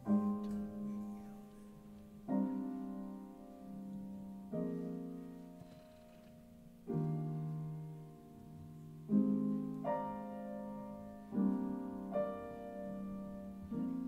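Piano playing slow jazz chords, a new chord struck about every two seconds and left to ring and fade.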